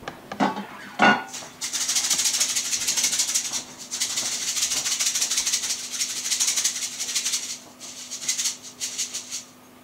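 A percussion shaker rattling in quick, even shakes for several seconds, with a couple of short breaks, after two soft knocks about a second in. A faint steady hum lies underneath.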